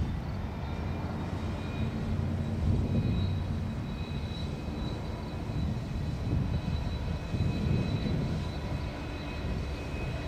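Union Pacific SD70ACe #1979 and trailing diesel locomotives moving slowly, a steady low diesel rumble that swells and eases, with thin steady high tones above it.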